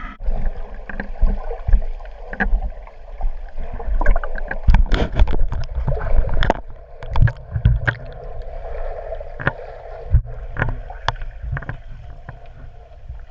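Muffled underwater noise of water moving around a GoPro camera dipped below the surface, with many irregular knocks and clicks from the housing being handled and bumped, busiest a few seconds in.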